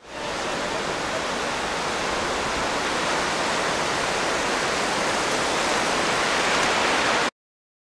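Surf washing onto a sandy beach: a steady, continuous rushing hiss that fades in at the start and cuts off abruptly near the end.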